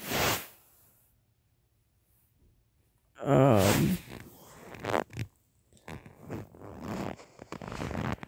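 A person's wordless vocal sounds: a breathy exhale at the start, a drawn-out wavering hum about three seconds in, then faint breaths and mouth clicks.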